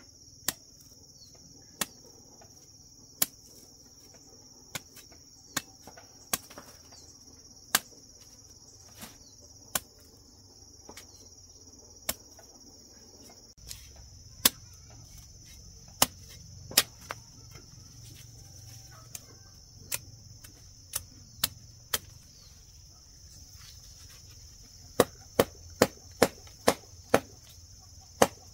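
Sharp chopping strikes, irregular and a second or two apart, coming quicker near the end, over a steady high trill of crickets.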